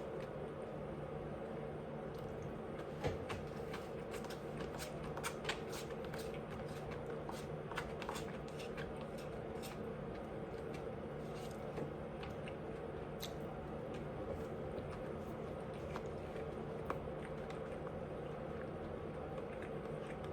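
Close-up eating sounds: scattered wet clicks and small crunches of chewing, busiest in the first half, over a steady low hum.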